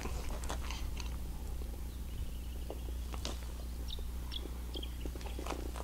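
Faint chewing and mouth sounds of a man eating a pie, small scattered clicks over a steady low background.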